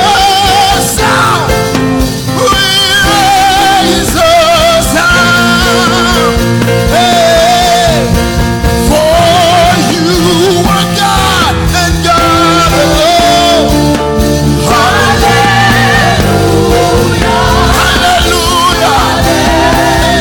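Gospel worship song with a lead singer's voice over a full band with a steady beat.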